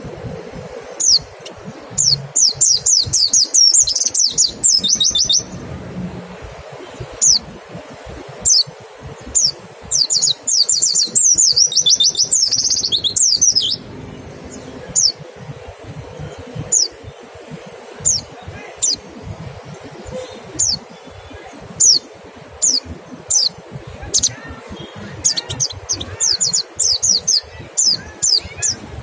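White-eye (pleci) calling with sharp, high, falling notes. Some come in fast rapid-fire runs and others singly, a little under a second apart.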